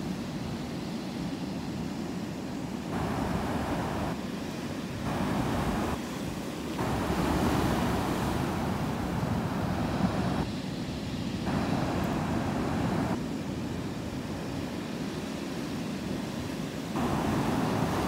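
Heavy ocean surf breaking and washing in over shoreline rocks: a continuous rush that swells and eases every few seconds and grows louder near the end.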